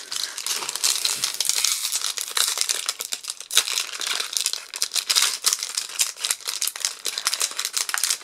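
Foil wrapper of a Magic: The Gathering collector booster pack being torn open and peeled back by hand: continuous crinkling with many sharp crackles.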